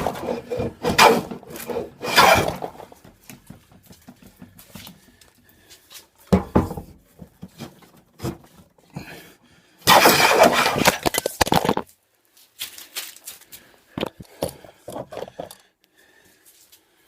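Workshop noise of wood being worked with hand tools: a few noisy scraping strokes, the longest and loudest lasting about two seconds near the middle, and scattered sharp knocks of wood and tools towards the end.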